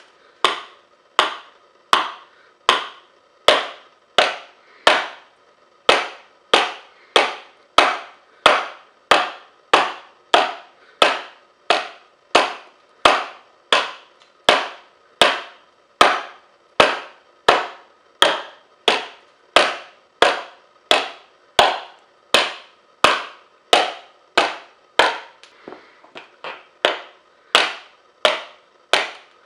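A hand-forged edge tool chopping into a wooden board in a steady rhythm, about one and a half strikes a second, each a sharp knock with a short ring, as the wood is chipped down towards a quarter inch thick. Near the end come a few lighter, quicker strikes.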